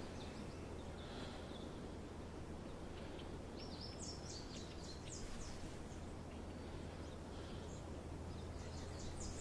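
Faint room tone with a steady low hum, broken twice by a quick run of high, short chirps from a small bird.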